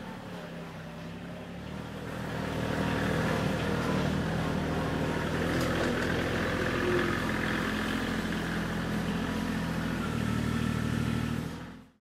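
Kioti CK35 35-horsepower compact diesel tractor's engine running as the tractor drives off, growing louder about two seconds in and then holding steady; the sound fades out at the very end.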